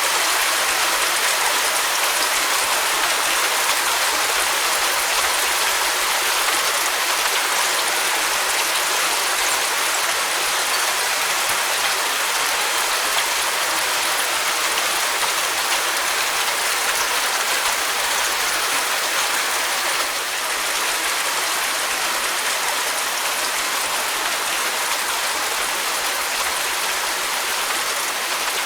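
Steady rain falling, a dense even hiss of many drops, easing very slightly about twenty seconds in.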